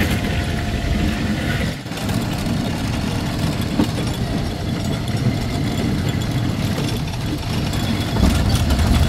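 Engine of an antique-car ride vehicle running steadily as the car drives along its guide-rail track, a low rumble that dips briefly about two seconds in.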